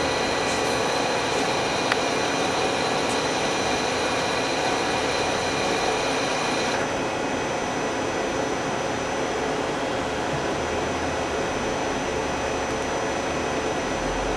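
Daewoo Puma 200LMSC CNC turning center running under power: a steady machine hum with a high whine that cuts off suddenly about seven seconds in. There is a single sharp click about two seconds in.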